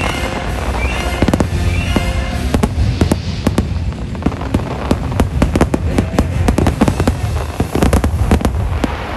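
A rapid barrage of fireworks bursts and crackling over the show's music from loudspeakers, thinning and fading near the end.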